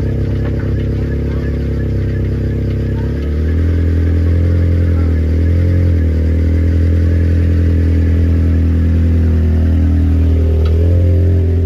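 Small hatchback car's engine running, its pitch and loudness stepping up about three seconds in and holding higher, with a brief dip around six seconds.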